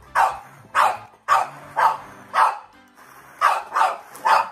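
A dog barking repeatedly, about eight barks at roughly two a second with a short pause in the middle. It is a dog that dislikes kitchen appliance noise, barking in protest at the blending.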